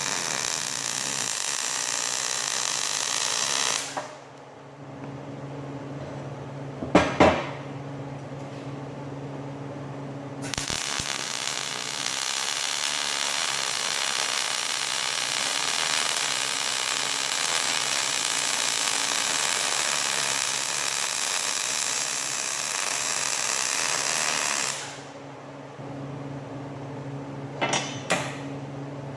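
Angle grinder grinding steel in two long passes, its motor humming steadily while it spins free between them. A couple of sharp metal knocks come in the pause and near the end.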